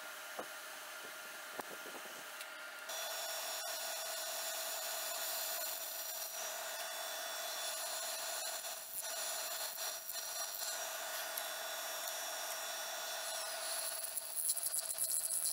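Drill press running, its bit cutting through an annealed Damascus steel knife tang to bore the handle pinholes. It starts about three seconds in, after a couple of faint taps, and gets louder near the end with a high squeal from the cutting.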